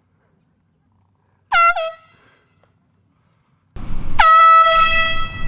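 Handheld air horn blasting: a quick double honk about a second and a half in, then a longer, loud blast a little after four seconds in. Each blast begins with a brief drop in pitch before settling. A rush of wind noise on the microphone comes in just before the long blast.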